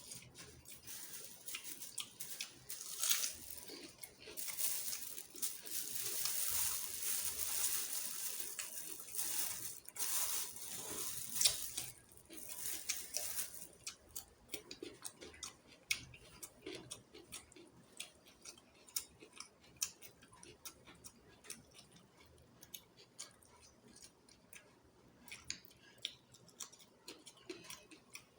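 Close-miked eating of chicken feet curry with rice. A dense run of wet, noisy handling and clicking of food fills the first dozen seconds or so, then it thins to scattered separate chewing and mouth clicks.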